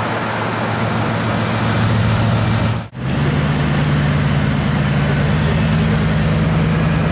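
A supercar's engine running at a steady low note in street traffic, cut off suddenly about three seconds in. It is followed by a Bugatti Veyron Grand Sport's quad-turbocharged W16 engine running at a steady, slightly higher low note as the car rolls slowly by.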